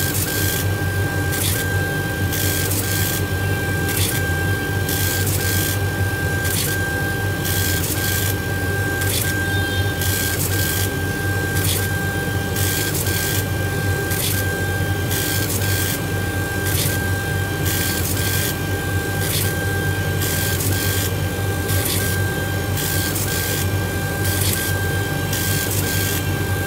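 Laser engraver raster-engraving a beech wood name plate: a steady high motor whine with a brief break about every second and a half as the head reverses at each pass, with regular pulsing and a steady low hum underneath.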